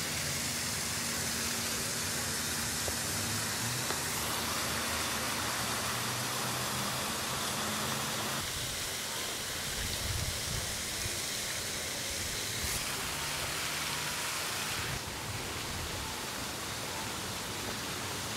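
Steady rush of falling water from a waterfall, an even hiss that shifts in level abruptly a few times.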